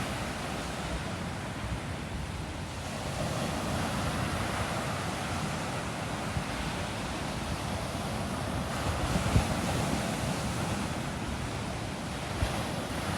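Steady rush of wind buffeting the microphone over washing water, with one short thump about nine seconds in.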